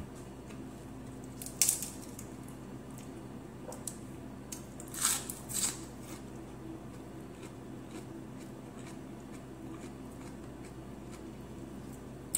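Close-up eating sounds of a person eating by hand: quiet chewing with short wet mouth smacks, one about one and a half seconds in and a louder pair around five seconds in.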